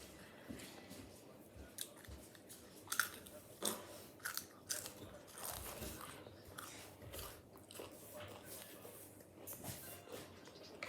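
A person chewing potato crisps with irregular crunches, the sharpest of them between about three and five seconds in.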